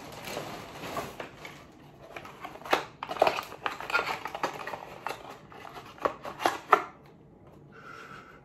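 Cardboard and plastic packaging being torn open and rustled by hand, a quick run of sharp crackles and rips that stops about seven seconds in.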